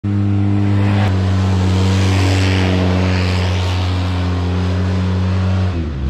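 Polaris RZR 800 side-by-side's twin-cylinder engine running at a steady pitch while driving on dirt, with a small step in pitch about a second in and a brief dip near the end.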